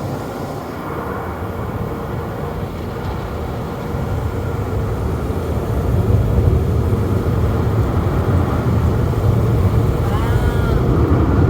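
Car wash rinse water spraying and drumming on the car, heard from inside the cabin as a dense, steady rush that grows louder about halfway through.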